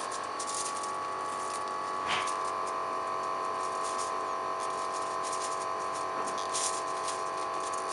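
Steady machine hum with several fixed pitches, with a few brief clicks and rustles of gloved hands tying a plastic cable tie around metal rods on aluminium foil.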